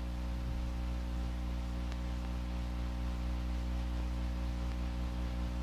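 Dead air on an AM/FM radio broadcast: no programme, only a steady electrical hum with many evenly spaced overtones under a faint hiss.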